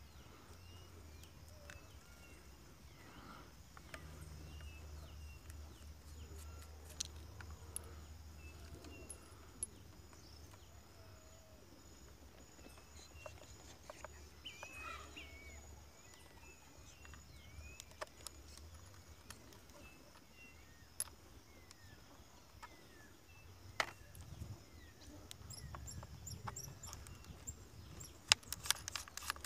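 Light clicks and taps from handling a TX850 metal detector's coil cable, shaft and plastic control box, with a quick run of sharp clicks near the end as the loudest part. Behind them, scattered bird chirps over a faint low steady rumble.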